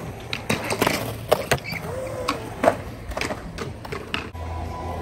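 Skateboards rolling across a smooth concrete skatepark surface, with a quick run of sharp clicks and clacks from the wheels and boards. A steady low hum comes in near the end.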